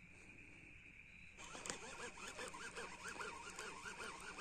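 Round baitcasting reel being cranked to wind in line, its gears whirring in a steady rhythm of about three turns a second that starts about a second and a half in.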